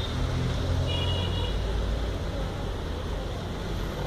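Steady low rumble of road traffic in the background, with a brief high-pitched toot about a second in.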